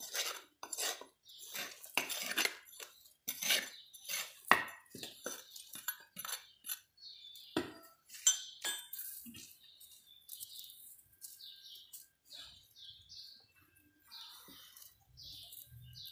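Dry potting soil scooped and pressed by hand into a terracotta pot around a plant's roots: irregular scraping and crumbling with sharp clinks against the clay. It is densest in the first half, then thins to quieter rustling.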